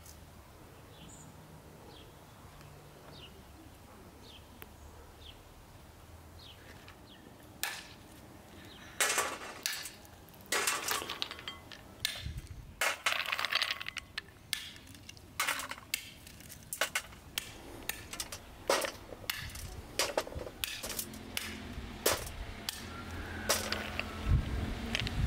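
Hammer cracking walnuts in their shells on a wooden block: after several quiet seconds, about twenty sharp knocks and cracks at irregular intervals, sometimes two in quick succession.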